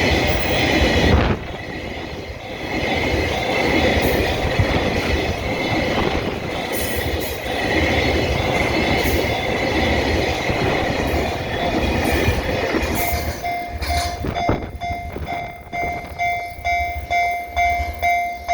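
Freight train of Taki 1000 tank wagons rolling past on the rails with a rumble and wheel clatter. About thirteen seconds in the rail noise thins out and a level crossing warning bell is heard ringing in a steady repeating pulse.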